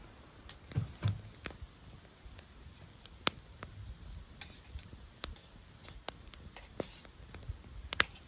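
Wood campfire crackling: sharp, irregular pops a second or so apart, the loudest near the end. About a second in, two dull thuds.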